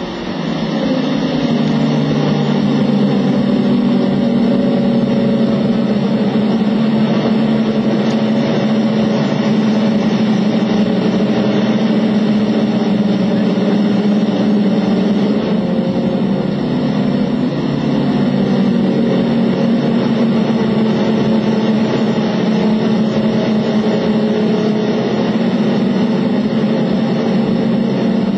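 Condensed aerosol fire-suppression generator discharging into the test enclosure: a loud, steady rushing hiss with a low hum in it. It builds up over the first second or so and then holds even.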